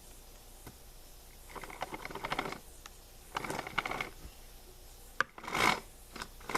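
The bar and chain of a Homelite XL chainsaw being handled, giving short bursts of metal rattling and scraping while the chain tension is checked; the chain has been left too loose. A sharp click about five seconds in.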